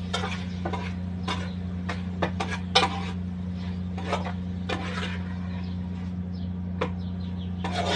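Dishes and utensils clinking and knocking in irregular single strokes, the loudest a little under three seconds in, over a steady low hum.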